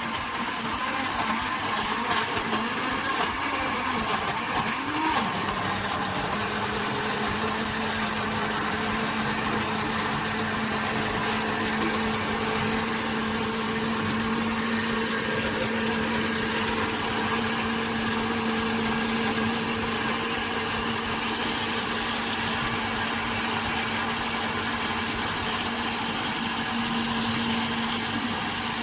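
Electric blender running steadily, puréeing onion, ginger, garlic, pepper and herbs with a little water into a smooth paste. Its motor tone wavers for the first few seconds, then holds at one steady pitch.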